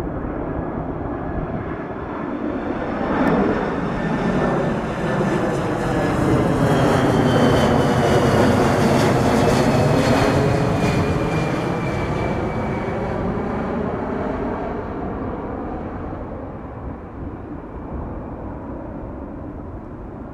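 Twin-engine jet airliner on approach with landing gear down, passing low overhead: the engine noise swells to a peak about halfway through and fades as it moves away. A whine falls in pitch as it goes by.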